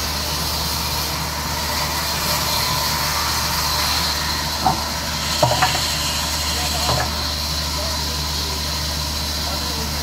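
Large sawmill band saw running and cutting through a log, a steady hiss over a low machine hum. A few short knocks come around the middle.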